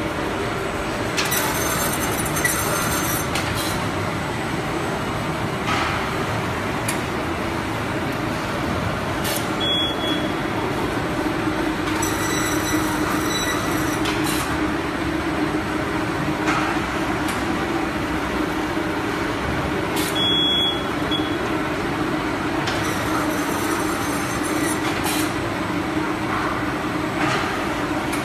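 Magnesium oxide board production line running: a steady machine rumble with a low hum and scattered clanks from the rollers and gantry. A high metallic screech comes up three times, about ten seconds apart.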